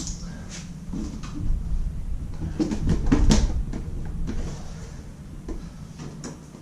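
Clicks and knocks of hands and tools working on a motorcycle's plastic tank cover and its fittings, the loudest knock about three seconds in.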